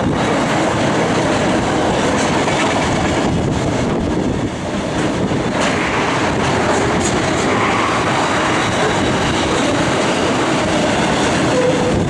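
Container freight train's wagons rolling steadily past on the rails: a continuous noise of steel wheels on track.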